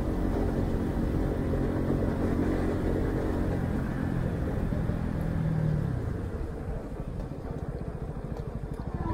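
Honda CB125R's single-cylinder engine through its stock exhaust, running steadily at cruising speed. About five seconds in, the throttle closes and the revs fall away. It then runs quieter with a low pulsing as the bike slows down.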